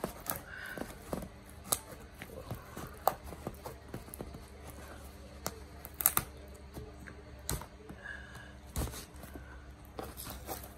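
Scissors cutting into a cardboard parcel box sealed with packing tape: irregular snips, scrapes and clicks, with a few sharper snaps.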